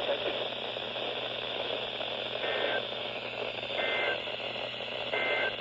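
Three short warbling two-tone data bursts about a second and a half apart over steady radio hiss, beginning a little over two seconds in. This is the Emergency Alert System's SAME end-of-message code, which signals the end of the alert broadcast.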